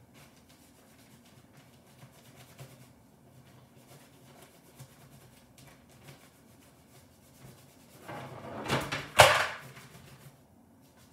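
Faint room hum with small scattered clicks, then about eight seconds in a short clatter of something being handled, ending in one sharp, loud knock.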